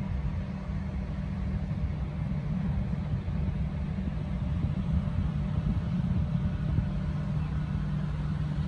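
Low, steady rumble of distant city traffic heard from high above the streets.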